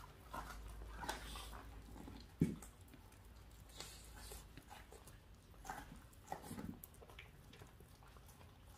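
A long-haired dachshund mouthing and chewing a raw duck carcass, faint scattered clicks and rustles of teeth on meat, with one sharper thump about two and a half seconds in.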